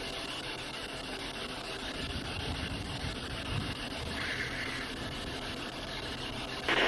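Steady hiss of background noise, with a slightly brighter stretch about four seconds in and a louder rush of noise starting just before the end.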